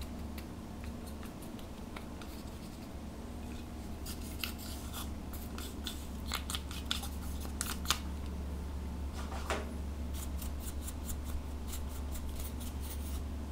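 Plastic spatula scraping and crumbling pressed eyeshadow powder out of a compact: crisp scratchy clicks that pick up about a third of the way in and come in quick runs near the end, over a steady low hum.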